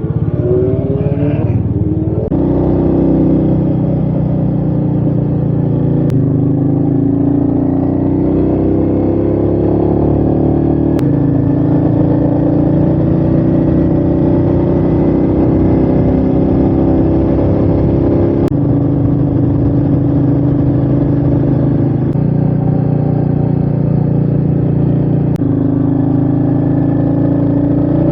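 Royal Enfield Meteor 350's single-cylinder engine running at speed with wind rush. The engine note climbs in pitch in stretches as it pulls, and jumps abruptly several times.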